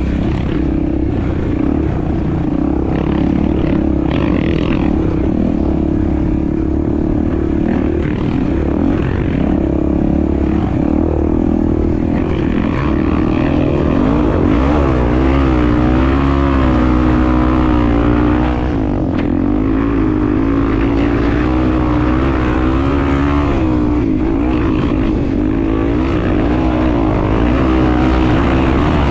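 Honda Tornado 250 single-cylinder four-stroke enduro motorcycle engine running while the bike is ridden, its pitch rising and falling with the throttle, with a brief drop about 19 seconds in.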